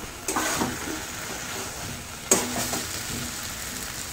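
Eggplant halves and tomato-spice masala sizzling in an aluminium kadai while a metal spatula stirs them, with a steady frying hiss. Twice the spatula knocks against the pan, about a third of a second in and again a couple of seconds later, and the pan rings briefly.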